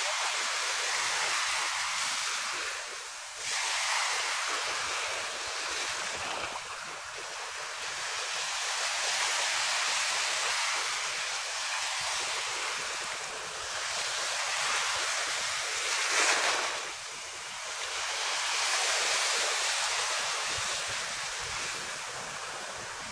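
Small waves washing in at the shoreline, the surf swelling and easing every few seconds, with some wind.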